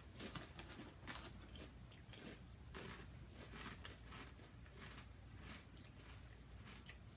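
Faint, irregular crunching of crispy potato snacks (Lay's Poppables) being chewed, a crunch every second or so.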